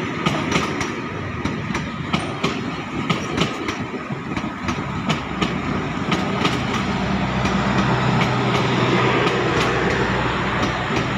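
Passenger train coaches rolling past, their wheels clacking over the track with a steady rumble. A steady low hum joins about halfway through.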